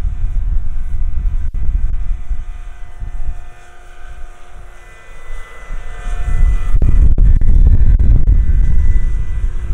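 Electric-powered Vario Dauphine AS 365 scale model helicopter in flight: rotor noise with a steady motor whine. It falls away for a couple of seconds about halfway through, then swells again strongly as the model comes back close.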